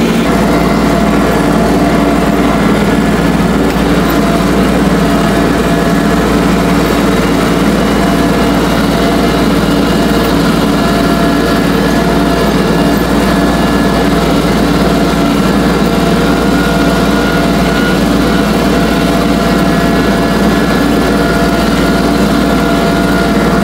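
Engine of a small four-wheel-drive tractor running at a steady speed while it drives across the field, heard close up from the seat.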